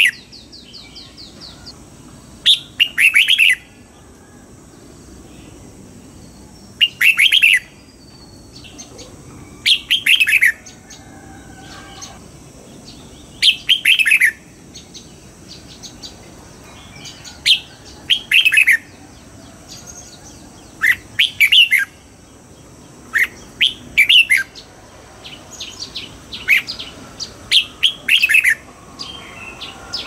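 Red-whiskered bulbul singing: short bright phrases of several quick falling whistled notes, repeated about every three to four seconds.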